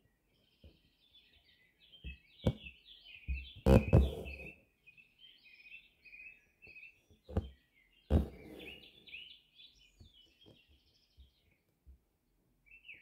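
Small songbirds chirping and twittering steadily, with several loud scratchy swishes of embroidery thread being drawn through fabric stretched tight in a hoop, the biggest about 4 s in and about 8 s in.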